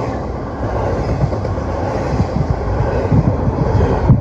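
Freight train rolling past with a steady rumble of wheels on rail, while wind buffets the microphone in low, uneven thumps that grow stronger in the second half.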